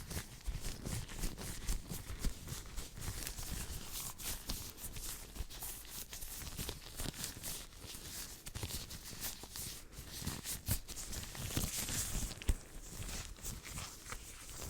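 Hands rubbing, brushing and moving quickly close to a microphone at full sensitivity: a continuous run of soft swishes, rustles and small crackles with occasional light taps.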